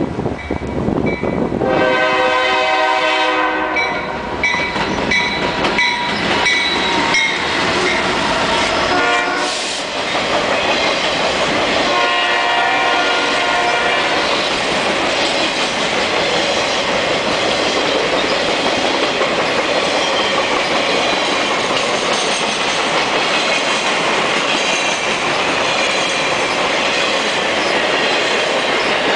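Freight train locomotive sounding its air horn in several blasts over the first fourteen seconds, the last one long. Then the BNSF RoadRailer train rolls past close by, with steady wheel-on-rail noise and the clickety-clack of the wheels over the rail joints.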